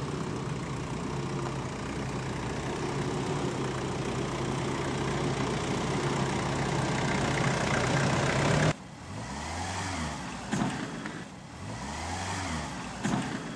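Jeep Cherokee engine running steadily at low revs while it crawls over rough ground, growing slightly louder. About nine seconds in the sound cuts to a Jeep Wrangler's engine, which rises and falls in pitch twice, with a couple of short knocks.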